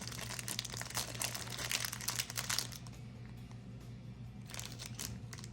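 Plastic packaging crinkling as LEGO parts are handled and taken out of it. The crinkling is dense for the first two and a half seconds, dies down, and comes back briefly near the end.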